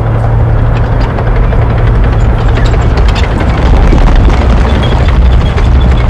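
Tanks close by: a steady low engine drone under constant metallic clanking and squealing of the tracks, loud and dense throughout.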